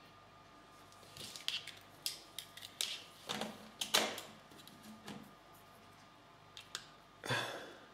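Scattered light clicks and knocks of a plastic 3D printing pen and its pen stand being handled on a desk. A louder knock and rub comes near the end.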